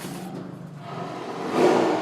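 Tiger growling low between roars: one roar fades out at the start, then a new roar swells up loudly about a second and a half in.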